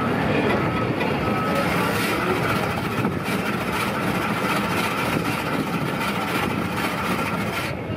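Electric shaved-ice machine running, its blade grinding a block of ice into snow with a steady, dense whirring noise that cuts off near the end.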